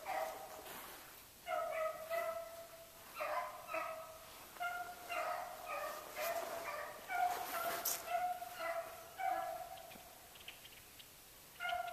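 Beagles baying in repeated short calls every second or two, more than one hound at once, the sound of the pack running a rabbit's trail.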